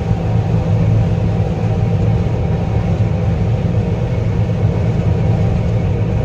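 Combine harvester running steadily while harvesting corn: a loud, even low drone of engine and threshing machinery with a few steady higher tones over it.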